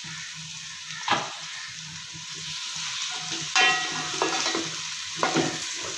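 Sliced onions sizzling in hot oil in a metal pot as they are browned, stirred with a wooden spoon, with a few louder scrapes of the spoon about a second in and again around three and a half and five seconds.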